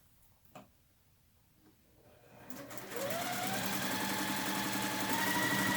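Electric sewing machine stitching a seam: after a quiet start with a faint click, the motor whine rises as it speeds up a little past two seconds in, then runs steadily.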